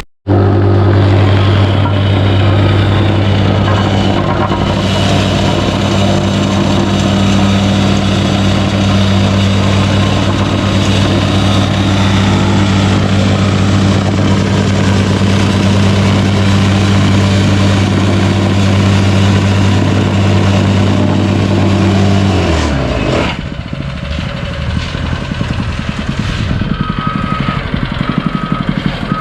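Gas-engine vibratory plate compactor running at full throttle, packing pavers, with a steady hum. About 23 seconds in it winds down in pitch and drops to quieter, uneven running.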